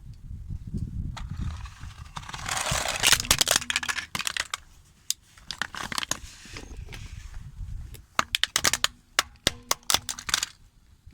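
Car tyre rolling over and crushing crunchy objects. A low rumble comes first, then a run of crackling and sharp snaps about two seconds in, and a second cluster of snaps near the end.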